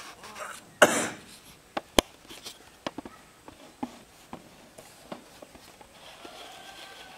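Camera handling noise: scattered light clicks and knocks, with a louder rustle about a second in and a single sharp click at two seconds.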